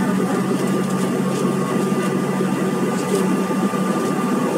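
Cabin noise of a Bombardier CRJ1000 taxiing, its rear-mounted turbofan engines at idle: a steady hum with a faint high whine and the rush of the cabin air.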